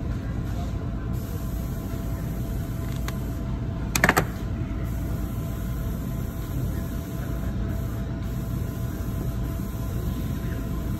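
Steady low background hum of a workshop, with a short cluster of sharp clicks about four seconds in.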